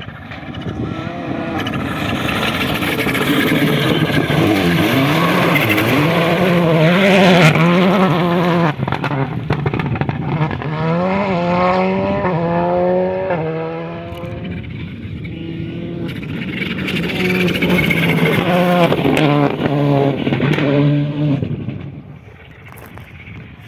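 Volkswagen Polo GTI R5 rally car's turbocharged 1.6-litre four-cylinder engine accelerating hard on gravel, its pitch climbing and dropping back with each gear change. It grows louder, eases off briefly in the middle, pulls again, then fades away near the end.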